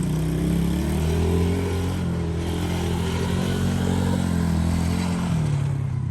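Coolster 125cc ATV's small single-cylinder four-stroke engine running under throttle as it is ridden, pitch rising at the start and then holding, dropping about five seconds in as the throttle eases off.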